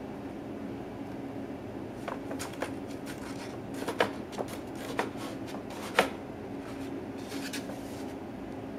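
Paper shopping bag crackling as a cat shifts inside it: a scatter of short crinkles and ticks starting about two seconds in, the sharpest about four and six seconds in, with a brief cluster near the end.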